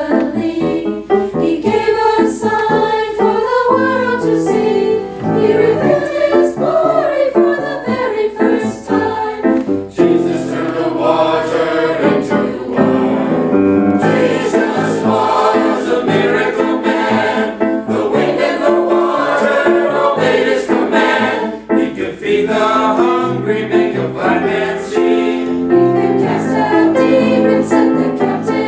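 Mixed-voice church choir singing continuously in parts.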